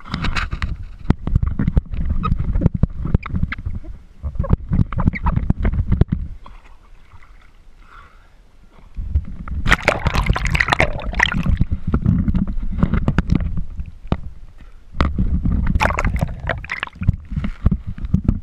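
Sea water sloshing and splashing against a camera held at the surface, with choppy gurgling as it dips under and comes back up. It goes quieter for a couple of seconds in the middle, then a loud gurgling burst about ten seconds in.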